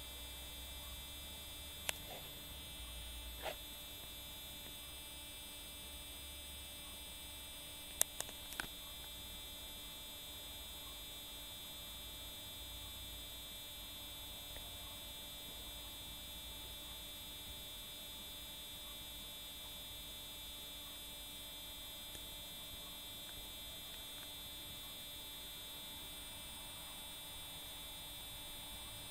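Steady electrical hum with several fixed high tones. It is broken by a sharp click about two seconds in, another near three and a half seconds, and a quick cluster of three clicks about eight seconds in.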